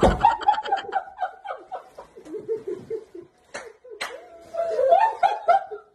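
Person laughing hard in repeated bursts, with two sharp clicks a little past halfway.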